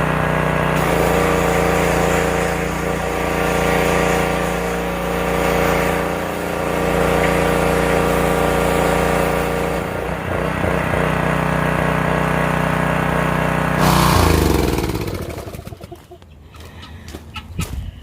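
Small gas engine of a Briggs & Stratton pressure washer running steadily, then shut off about fourteen seconds in, its pitch falling as it winds down. A few light clicks and knocks follow.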